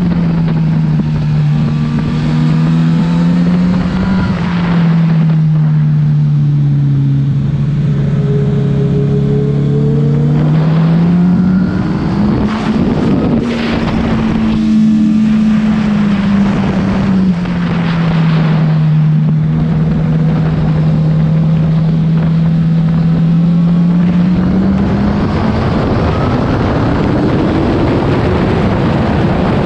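Honda CBR1000 motorcycle's inline-four engine under way, its pitch rising and falling with the throttle, with long steady stretches at cruise and a climb near the end. Wind rushes over the microphone throughout.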